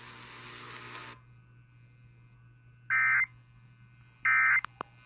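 Weather radio broadcast: a second of static hiss, then two short bursts of EAS/SAME digital data tones a little over a second apart. They are typical of the end-of-message code that closes an alert. A faint click follows the second burst.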